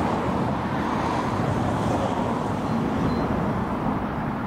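Steady rumbling noise of road traffic passing close by.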